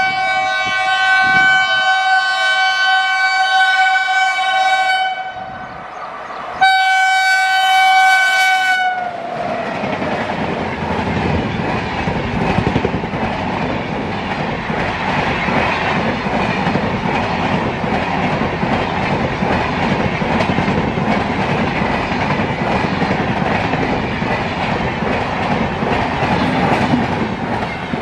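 Train horn sounding two long blasts, the second bending down in pitch as it ends, followed by the steady noise of the train running on the rails.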